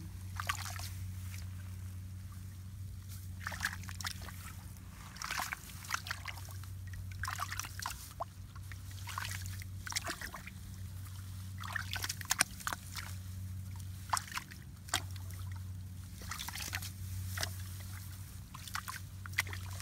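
Shallow water sloshing and splashing in irregular bursts, as if being stirred or scooped by hand, over a steady low hum.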